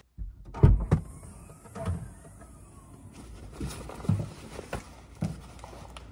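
Tennis practice with a ball machine: tennis balls thudding as they are launched, hit and bounce, about seven dull thumps in six seconds, irregularly spaced.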